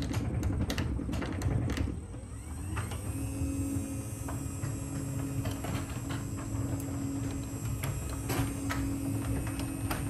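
Genie 6170 wall-mounted jackshaft garage door opener running as it closes a sectional garage door, with the door's rollers clicking in the steel tracks. A dense low rattle at first, then a steady motor hum sets in about three seconds in and holds.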